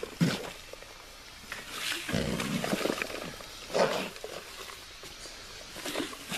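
Corrugated plastic drain pipe scraping and rustling against dirt as it is pushed down into a trench, in irregular bursts with a longer rumbling stretch a little past two seconds in.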